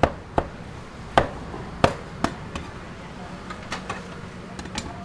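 Sharp knocks and clacks of kitchen work at a street food stall, about five loud ones in the first two and a half seconds, then lighter ticks near the end, over a low steady hum.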